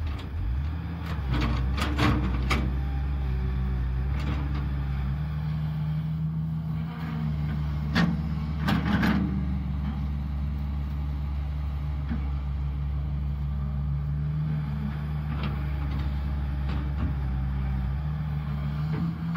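Caterpillar 320 hydraulic excavator's diesel engine running under load while digging, its note rising and falling a little as the hydraulics work. Sharp clanks and knocks from the digging stand out about two seconds in and again around eight to nine seconds in.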